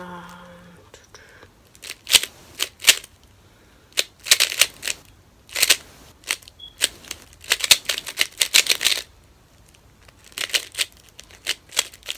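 Plastic 3x3 speedcube being turned fast by hand: bursts of rapid clicking and clacking as the layers snap round, with short pauses between turn sequences.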